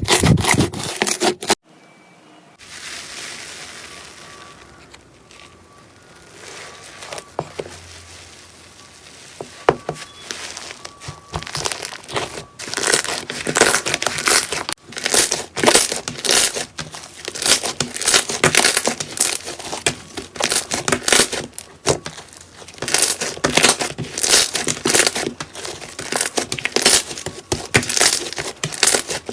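Slime being squeezed and worked by hand, giving rapid crackling and popping. It is quieter at first and grows dense and loud from about twelve seconds in.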